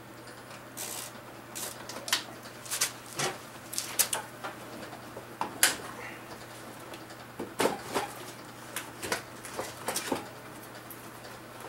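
Scattered, irregular clicks and knocks of hand tools working on a Chevrolet Trailblazer, with a steady low hum underneath.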